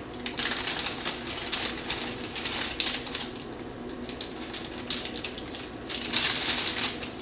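Irregular clicking, tapping and scraping of a utensil against a mixing bowl as brownie mix is worked, with a busier run of clicks about six seconds in. A faint steady hum lies underneath.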